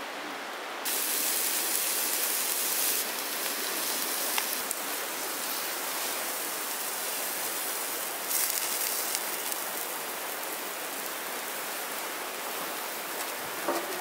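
Meat in a wire grill basket sizzling over hot charcoal: a steady hiss that gets louder about a second in, with a faint pop or click now and then.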